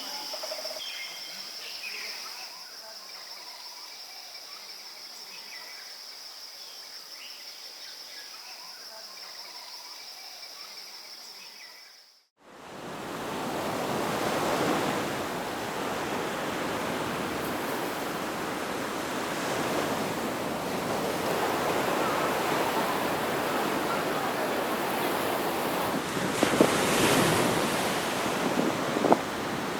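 A steady high insect drone with scattered faint bird chirps. About twelve seconds in it cuts off abruptly to the louder, steady wash of ocean surf.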